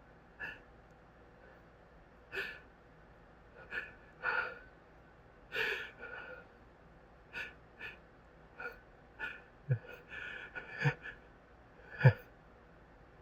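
A man's hitching, gasping in-breaths of a stuck sneeze that won't come out, set off by closet dust. About a dozen short breaths at uneven intervals, some with a catch of voice, the loudest about twelve seconds in.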